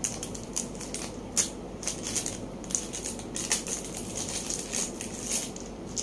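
Small plastic bag of furniture-assembly hardware being handled and opened: irregular crinkling and rustling with a few sharper crackles.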